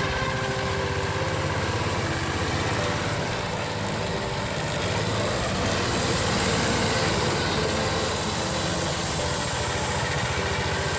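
Small petrol engine of a Burlak motor tow (a tracked snow towing unit) running steadily while the tow moves over snow.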